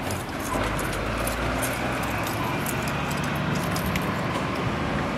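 Flatbed tow truck driving past and away, its low engine rumble strongest for the first second and a half and then easing, with scattered light clicks and rattles over steady street noise.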